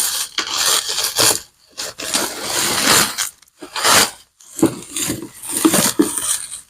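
Packaging rustling and crinkling in irregular bursts as a leather bag is handled, with scrapes and a few light knocks.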